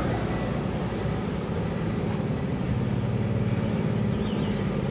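A motor vehicle's engine running steadily, a continuous low rumble.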